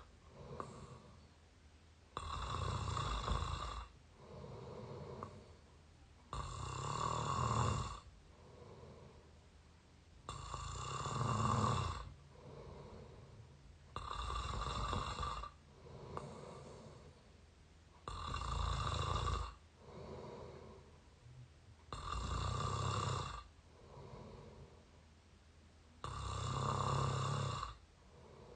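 A person snoring through the mouth, close to the microphone, in a slow steady rhythm of about one breath every four seconds. Each breath is a loud rasping snore followed by a softer breath sound.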